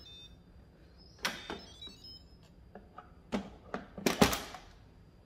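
Instant Pot pressure cooker lid being twisted to open and lifted off the pot: a few separate clicks and knocks, the loudest about four seconds in as the lid comes free.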